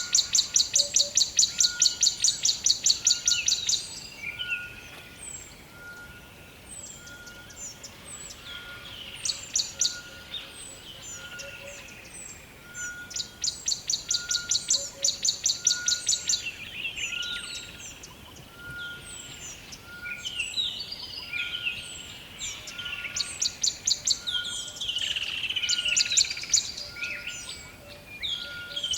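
Rainforest ambience of many birds calling: short chirps and falling whistles, broken three times by a loud, fast pulsing trill lasting a few seconds each. Under it runs a soft short note repeated about once a second.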